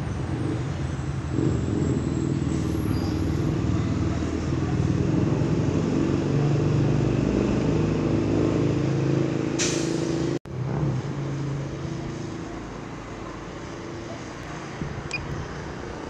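A road vehicle's engine running steadily, louder for the first two-thirds. About nine and a half seconds in there is a short sharp hiss, then the sound cuts out for an instant.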